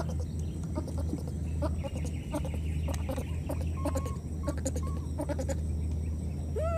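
Animal calls: a few short high squeaks, then one arching call that rises and falls near the end, over a steady low hum and scattered clicks.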